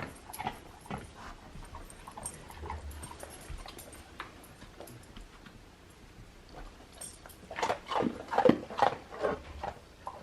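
A dog whining and whimpering in short cries, loudest in a cluster near the end, with scattered small clicks.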